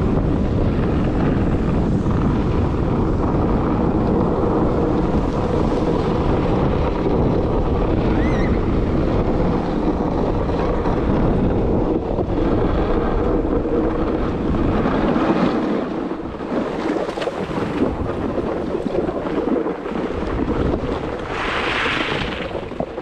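Wind buffeting a skier's body-worn camera microphone, with skis running over groomed piste snow. The rush eases and turns patchy after about fifteen seconds as the skier slows. A short hissing scrape of snow comes near the end as the skis skid to a stop.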